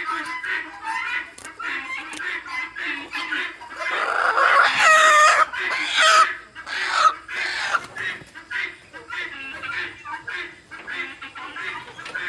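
A flock of chickens squawking and clucking in alarm as they are chased and caught for wing clipping. There is a chorus of short calls, with one loud, drawn-out scream about five seconds in.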